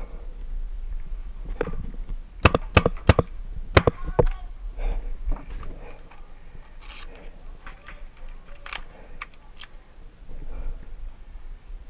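Paintball markers firing: a quick string of sharp pops about two and a half to four seconds in, then a few scattered single pops later.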